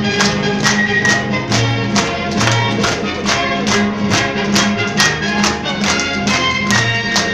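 Instrumental music with a quick, steady beat.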